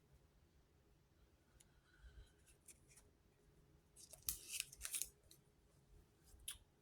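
Mostly near silence, with a few short swishes and rubs of trading cards being handled and laid down, clustered about four to five seconds in and once more near the end.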